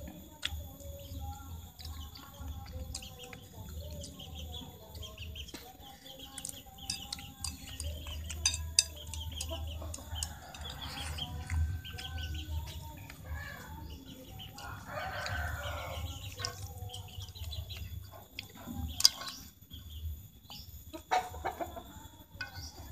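Chickens clucking on and off, with a few sharp clicks of chopsticks against a plate, the loudest about three-quarters of the way through.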